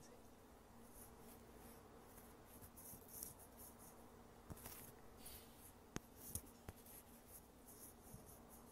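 Near silence: faint room tone with a few soft clicks and light scratchy rustles.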